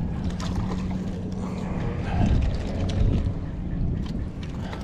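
Wind buffeting the microphone over a steady low hum from the boat, with a few faint clicks scattered through.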